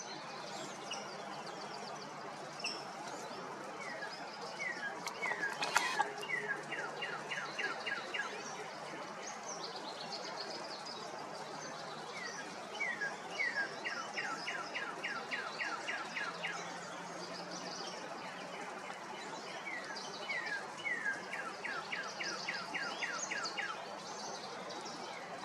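A songbird singing the same song three times, each a few slow down-slurred whistles that speed up into a quick run of short notes. There is a sharp click about six seconds in, over a steady outdoor hiss.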